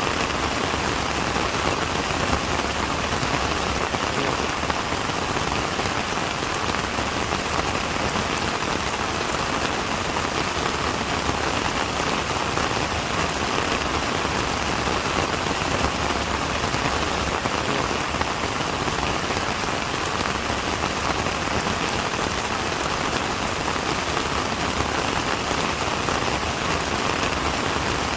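Steady rain falling, a dense, even patter of raindrops on a surface with no letup.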